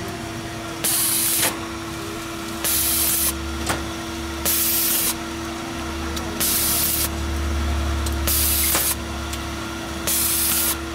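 Short hissing sprays, each under a second long, repeating evenly about every two seconds over a steady low hum.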